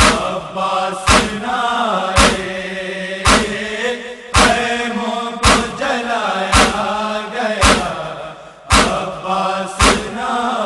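Male voices chanting an Urdu noha, a Shia lament, over a sharp, even beat about once a second: the matam chest-beating that keeps time in noha recitation.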